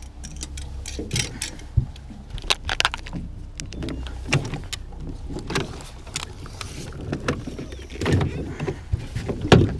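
Irregular clunks, knocks and rattles of gear being handled on a small boat as the bow-mounted electric trolling motor is raised and stowed, with the loudest knock near the end.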